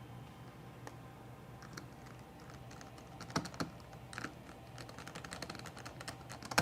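Light clicks and small plastic-and-metal ticks from handling a laptop's Wi-Fi card and small screws while fitting it into the open chassis. Two sharper clicks come about three and a half seconds in, then a run of quick small ticks and one more sharp click near the end.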